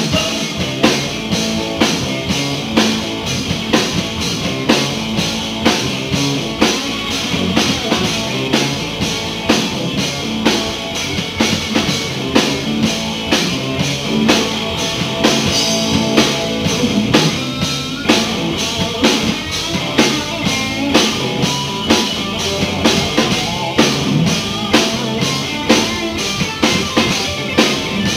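Live blues-rock band playing, with a drum kit keeping a steady beat under electric guitar and bass guitar.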